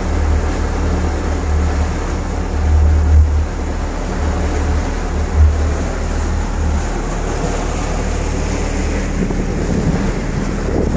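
Motor yacht running under way on only one of its engines, the other having a fault: a steady low drone under the rush of the churning wake, with wind buffeting the microphone. The wind gusts louder about three seconds in and again about five and a half seconds in.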